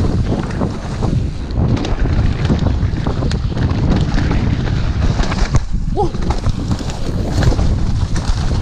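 Wind buffeting the microphone of a mountain-bike camera at speed, with the tyres running over mud and leaves and the bike rattling and knocking over bumps on the trail. A short squeak comes about six seconds in.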